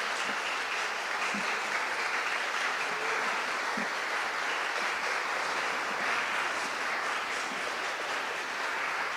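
A church congregation clapping together in a steady, sustained round of applause, held at an even level.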